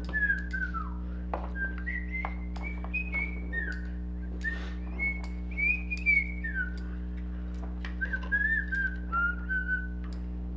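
A person whistling a tune, one clear line of gliding notes, over a steady low hum. Light clicks of small plastic parts are handled now and then as a toy's gear mechanism is put back together.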